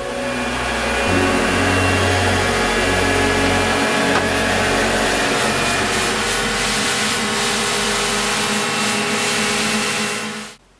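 Steady machine whirring with a dense hiss and several steady tones, cutting off shortly before the end.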